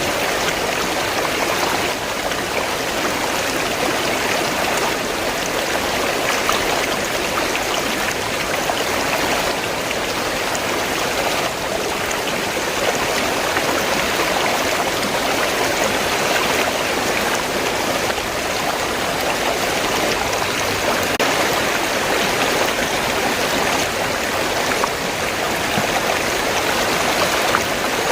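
River water flowing steadily, an even rushing and babbling with no breaks.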